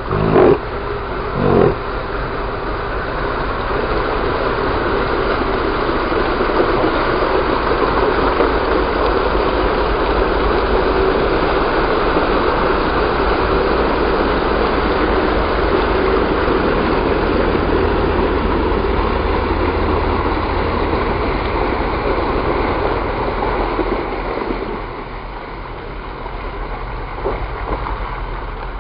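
Jeep Wrangler JK Rubicon wading through a creek: its engine running under the steady rush of water churning and splashing around the tyres. The sound swells as the Jeep draws close and drops off a few seconds before the end.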